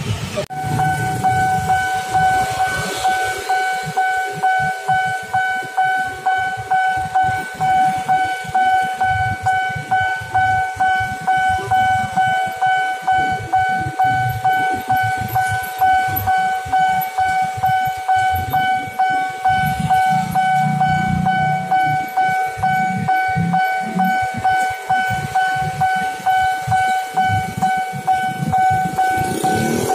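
Railway level-crossing warning bell starting about half a second in and ringing on as an evenly repeated electronic ding, about two strokes a second, signalling an approaching train while the barrier comes down. Motorbike engines run underneath.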